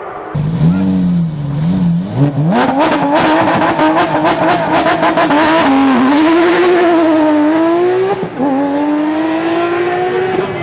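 Porsche GT3 rally car's flat-six engine revving hard as the car drives the stage, the note climbing steeply, with a rapid stuttering rattle for about three seconds in the middle. It dips and climbs again, then drops sharply with an upshift near the end and rises once more.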